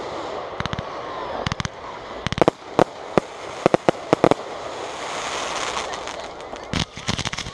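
Aerial firework shells bursting: sharp bangs at uneven intervals, some single and some in quick clusters, with a run of them about a second in, another around four seconds in, and another near the end. A steady hiss fills the gaps between them.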